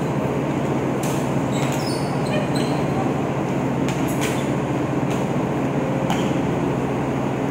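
Ship's machinery and ventilation hum, a steady low drone throughout, in a large steel cargo hold. A basketball bounces on the steel deck a handful of sharp thuds apart, with players' footsteps.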